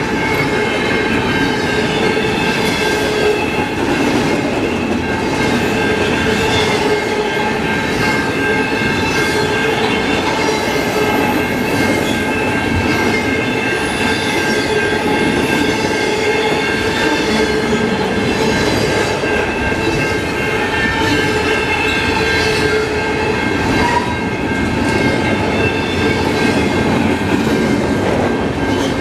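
Freight train's container well cars rolling past, with a steady rumble of steel wheels on rail, regular clacks over the rail joints and a continuous high-pitched ringing squeal from the wheels.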